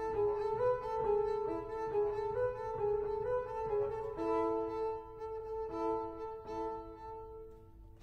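Solo double bass played with the bow in its high register: a melodic line of sustained notes that change every half second or so. It grows quieter and fades near the end.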